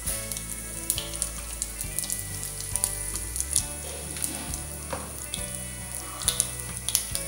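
Mustard and cumin seeds sizzling in hot oil in a metal kadai, a steady hiss broken by scattered sharp pops as the seeds start to splutter.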